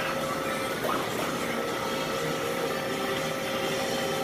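Steady machine hum with a few thin whining tones held through it, and a faint clank about a second in.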